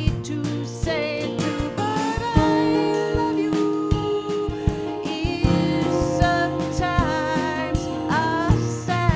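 Live acoustic song: two acoustic guitars picked and strummed together, with a woman singing over them.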